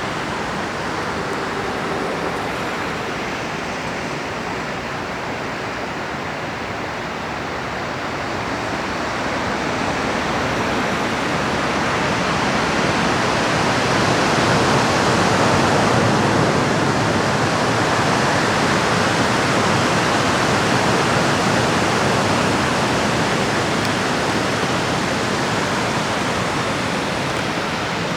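A huge flock of Baikal teal flying overhead: a dense rushing of countless wings that swells to a peak about halfway through and slowly fades again.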